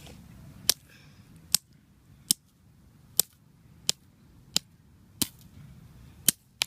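A fidget spinner being struck repeatedly with a hard object to break it: about nine sharp, hard smacks, a little under a second apart, two of them close together near the end.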